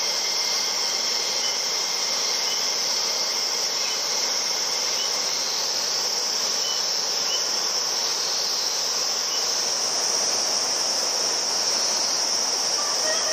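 Steady evening chorus of insects, a continuous high shrill trill, over an even rushing noise like a mountain river.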